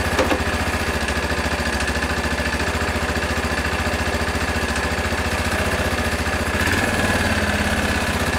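Bashan 250 ATV engine running steadily at idle, with a short rise in engine speed about seven seconds in and a couple of light clicks just after the start.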